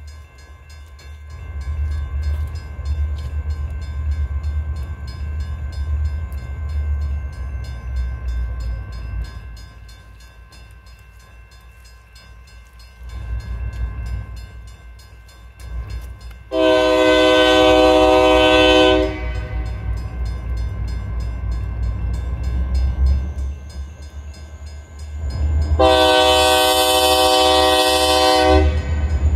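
Diesel locomotive air horn sounding two long blasts about seven seconds apart as the train approaches a grade crossing. A low rumble runs underneath.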